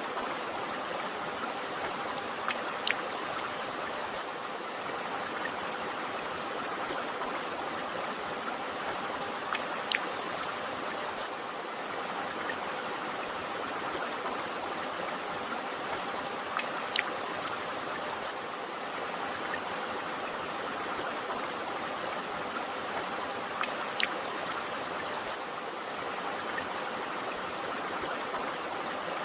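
A river or stream running steadily, an even rushing of flowing water, with a few brief sharp drip-like ticks at intervals of several seconds.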